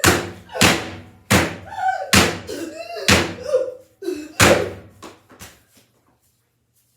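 A slipper slapped hard against metal about six times in quick, uneven succession, each blow a loud slam with a short ringing tail, with brief voice sounds between the hits; it stops about five and a half seconds in.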